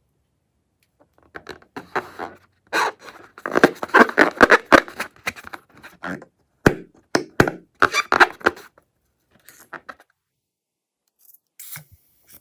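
Handling noises from slime-making: a dense run of sharp, irregular crackling clicks, then a few scattered clicks near the end.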